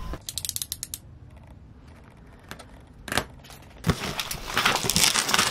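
A quick run of small clicks, then a few scattered knocks, then about four seconds in, louder scraping and rustling as hands grip and shift a large cardboard griddle box.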